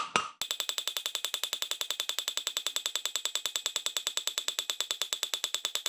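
Rapid, very even light metallic tapping with a ringing tone, about ten strikes a second, starting about half a second in. It is an old valve seat being knocked out of a heated UMZ Evotech 4216 aluminium cylinder head with light taps on a drift.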